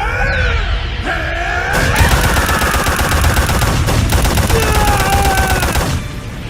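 A rapid, dense barrage of anime fight-hit sound effects, like a flurry of punches, over a heavy low rumble, with shouting, straining voices over it. The barrage cuts off suddenly about six seconds in.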